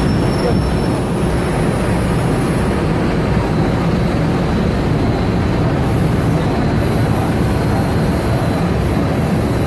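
Industrial mixer unit with chiller running: a loud, steady machine noise with a faint high-pitched whine over it.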